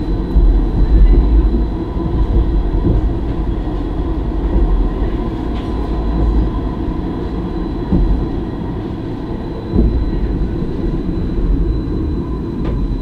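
Stadler Variobahn light-rail tram running along its track, heard from inside the driver's cab: a steady low rumble of wheels and running gear with a faint high whine. There are a couple of light knocks near the end.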